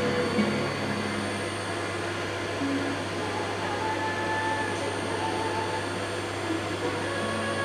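Vacuum cleaner running with a steady, even noise and low hum.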